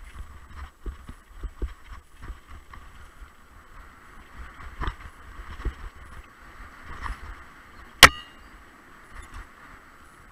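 Mountain bike rolling fast down a rough dirt trail, heard from a camera riding on it: a steady low rumble with scattered knocks and rattles over bumps, and one sharp, loud knock about eight seconds in.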